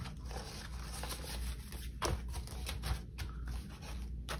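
Paper cash and envelopes being handled: soft rustling with a few light flicks, one a little clearer about two seconds in, over a low steady hum.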